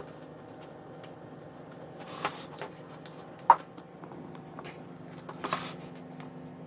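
Brief soft rustles about two seconds in and again about five and a half seconds in, with one sharp tap in between, over a steady low hum.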